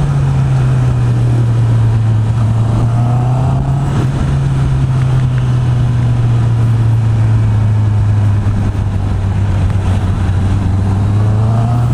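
Honda CB650R inline-four engine with its stock exhaust, running steadily while the bike is ridden along a highway. The engine note eases down slightly at the start and climbs again near the end as the throttle is opened.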